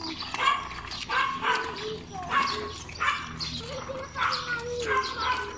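A dog barking over and over, about eight barks in a row.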